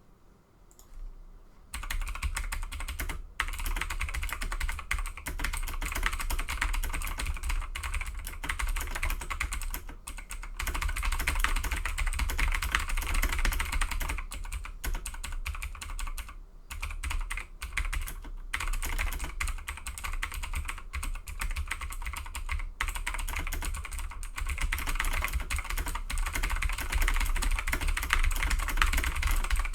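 Fast continuous typing on a Razer BlackWidow Tournament Edition Chroma V2 mechanical keyboard with clicky Razer Green switches: rapid key clicks starting about two seconds in, with a few brief pauses. A steady low rumble sits underneath, caused by where the microphone is placed.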